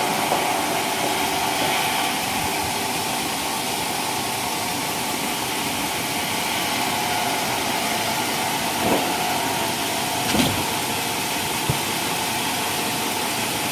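Homemade sawmill running steadily, a continuous engine-and-saw noise, with a few brief knocks about nine, ten and a half and twelve seconds in.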